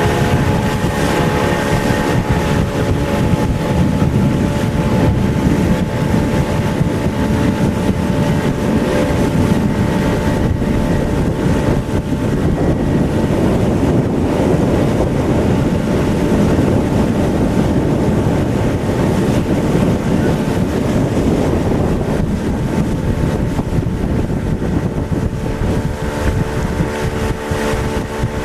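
Motorboat engine running steadily while under way, a constant drone with a few steady tones over it, and wind buffeting the microphone.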